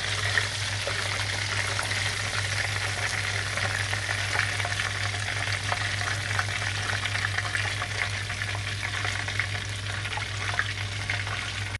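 Spiced chicken drumsticks frying in hot oil in a wok: a steady sizzle with fine crackling. A steady low hum runs underneath.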